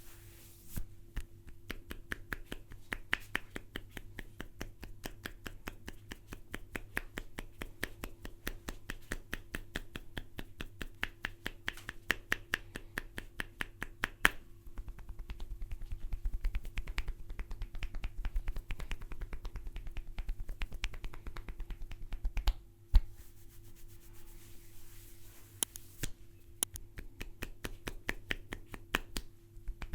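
A barber's hands working quickly in an Indian head massage, making a fast, fairly even run of crisp slapping clicks, several a second. One much louder smack comes about two-thirds of the way through.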